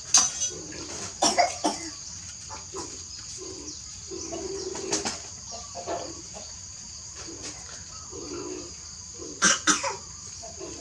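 Puppy lapping milk from a thin plastic tray, with a few loud sharp clicks and crackles from the plastic. Short low calls repeat every second or so under a steady high hiss.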